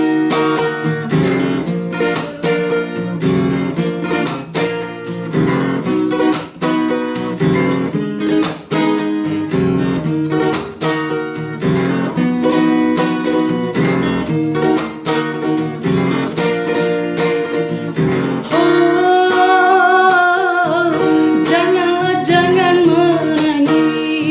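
Acoustic guitar strummed in a steady rhythm, playing the instrumental break of a song. About three-quarters of the way through, a held, wavering melody line joins the guitar.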